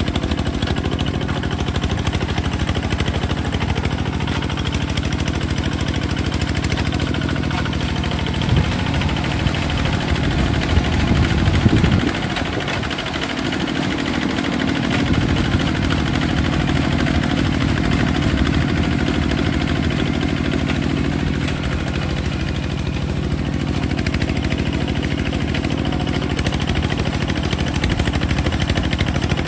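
Kubota bulldozer engine running steadily. Its note rises and gets louder just before the middle, then drops for a few seconds before settling back to a steady run.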